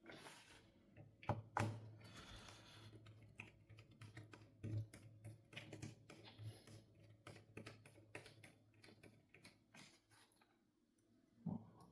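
Faint, irregular clicking and tapping of small tools and plastic laptop parts being handled, with a few louder knocks, over a low steady hum.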